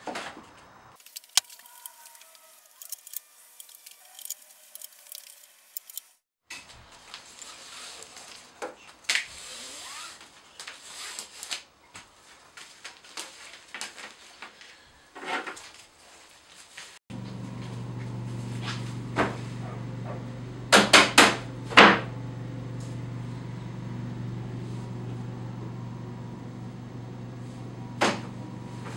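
Scattered knocks and taps of wood on wood as the finished wooden table is handled. About two-thirds of the way through a steady low hum starts under them, with a few sharp knocks near the end.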